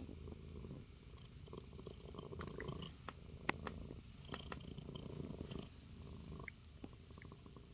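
Domestic cat purring, a faint steady low rumble, with a few small clicks, the sharpest about three and a half seconds in.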